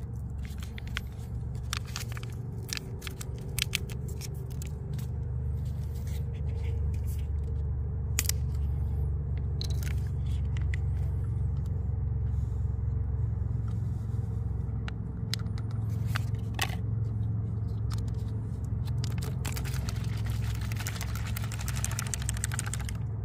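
Drink-mix stick packet crinkling as it is handled and torn open, its powder poured into a plastic water bottle, then the bottle shaken about 20 seconds in, over a steady low rumble.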